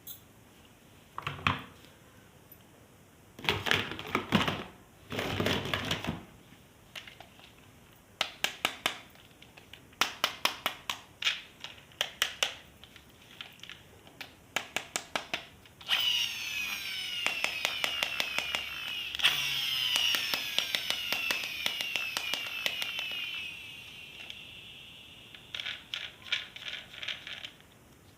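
Plastic clicking in short rapid runs, then a battery-powered toy gun's electronic sound effect for about seven seconds: rapidly repeated falling zaps over a buzzing whir. A few more clicks come near the end.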